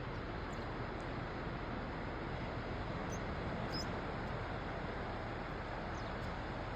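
Ocean surf washing in as a steady, even rush, with a few faint high chirps over it.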